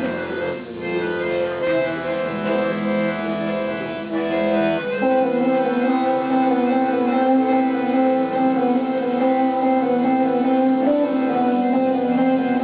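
Live acoustic instrumental music: a bowed fiddle with plucked strings and sustained, drone-like notes. The harmony shifts about five seconds in.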